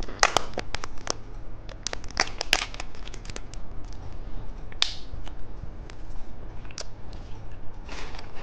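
Plastic candy wrapper crinkling and crackling in a run of sharp clicks as a liquid-filled gummy candy is handled and opened, with a longer rustle about five seconds in and again near the end.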